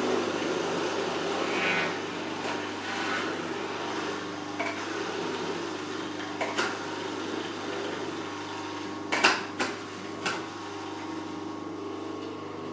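Electric juicer's motor running with a steady hum while spinach and apple are pushed down its feed chute with a plunger. A few sharp knocks come about nine to ten seconds in.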